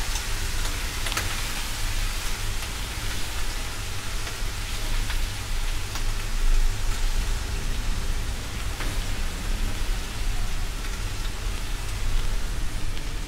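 Chicken and vegetables sizzling in hot oil in a nonstick wok over a lowered flame: a steady frying hiss with a few light clicks, over a low steady hum.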